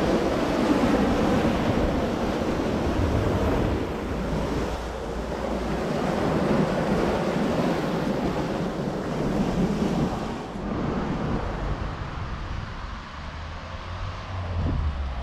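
Wind buffeting the microphone over a rushing of water like waves, swelling and easing every few seconds and growing quieter near the end.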